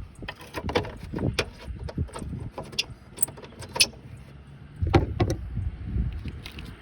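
Irregular clicks, taps and knocks of metal parts being handled while the lift-gate latch plate and its cable are refitted, with a heavier clunk about five seconds in.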